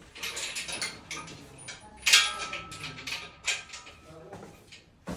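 Irregular metallic clicks and clanks of hand tools against the steel main-bearing ladder and crankshaft of a bare 4.4 V8 diesel engine block. The loudest is a sharp clank about two seconds in that rings briefly.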